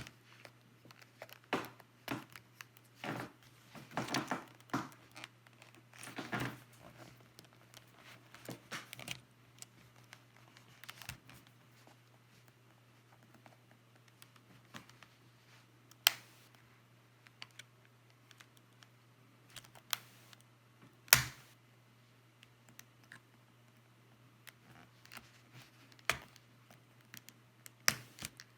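Prying tool scraping and clicking against the plastic case of a Logitech K750 keyboard as an edge is pried up: a busy run of short scrapes and clicks, then a few single sharp clicks spread over the rest of the time.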